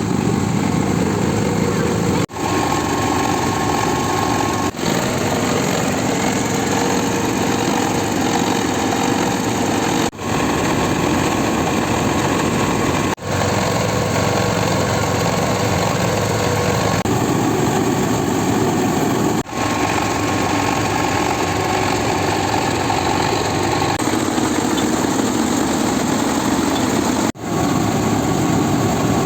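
Engine of a rice-milling machine running steadily, cut off briefly about six times.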